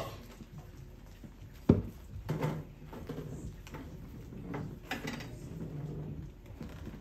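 Knocks and shuffling on a theatre stage: a sharp thump about two seconds in, then scattered softer knocks and faint low murmuring.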